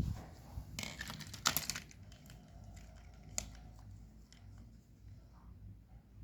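Crinkling and rustling in two short bursts about a second in, then a single sharp click near the middle and a few faint ticks.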